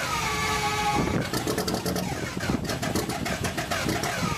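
Engine revving, its pitch falling sharply at the start and then sweeping up and down again and again.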